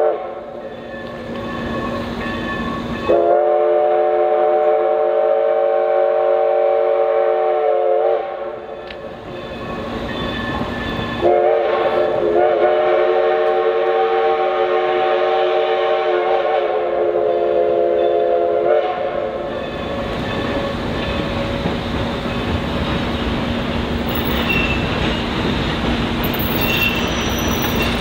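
Steam locomotive whistle sounding two long blasts, each a steady chord of several notes; the second runs longer and shifts slightly before it stops. Then the train's approaching rumble and clatter grows.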